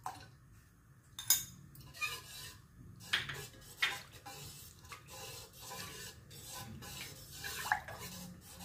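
A steel spoon stirring thin batter in a stainless steel pot, clinking and scraping against the metal sides, with a sharper clink about a second in.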